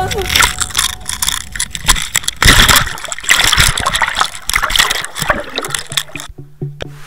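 Water splashing, gurgling and sloshing around a camera at or just under the surface, with irregular knocks and loud surges about half a second in and again around two and a half seconds in.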